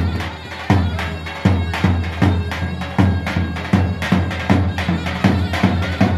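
Live davul and zurna folk dance music: a large double-headed bass drum beaten in a steady, uneven-stepped dance rhythm under the loud, reedy, continuous melody of a zurna.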